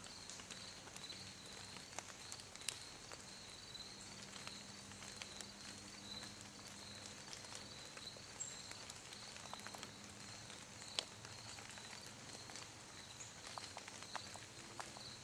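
Woodland ambience: an insect calling in a steady, high-pitched pulsing rhythm, with a few scattered sharp clicks and crackles in the dry leaf litter.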